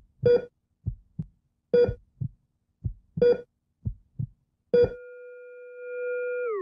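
Heartbeat and heart-monitor sound effect. A pitched beep comes about every second and a half, with pairs of low heartbeat thuds between. The fourth beep holds on as a long steady tone, like a flatline, and drops in pitch near the end.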